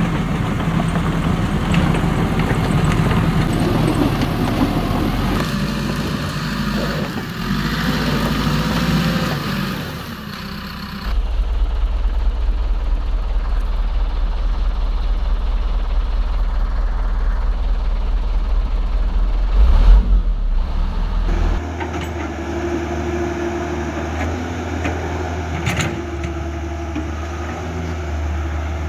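Construction-vehicle engines running steadily, the sound changing abruptly twice, about eleven and twenty-one seconds in, with a brief loud knock shortly before the second change.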